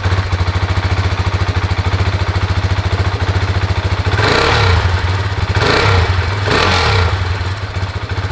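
KTM 690 SMC-R's single-cylinder engine idling just after starting, with three short throttle blips about four, five and a half and six and a half seconds in.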